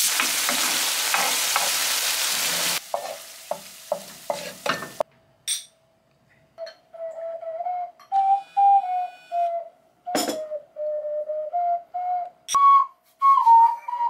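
Stir-fry sizzling in a frying pan while it is stirred and scraped, then a few knocks on the pan. After a short pause comes a slow simple tune played one note at a time on a small handheld wind instrument, with a couple of sharp clinks in between.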